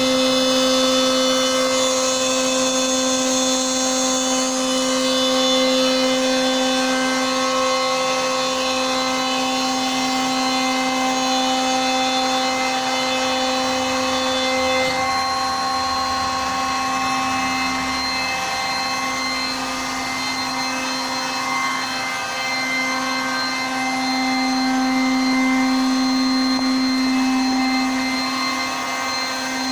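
CNC router spindle running and cutting MDF, a steady whine with small shifts in tone as the cut goes on.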